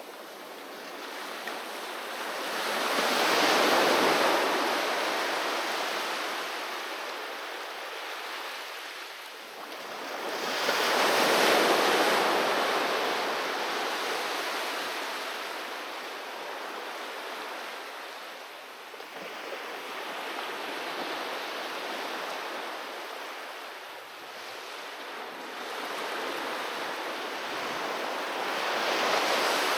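Sea waves breaking and washing up a beach in slow surges that swell and fade. The two biggest come about 4 and 12 seconds in, followed by smaller ones, and another builds near the end.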